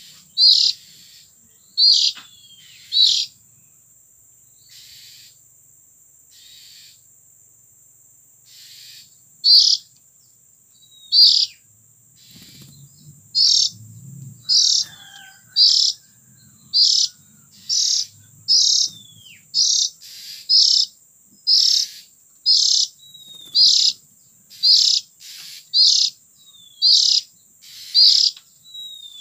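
Oriental magpie-robin (kacer) giving short harsh calls, a few spaced out at first, then repeated about once a second from about halfway through, some with a quick falling tail.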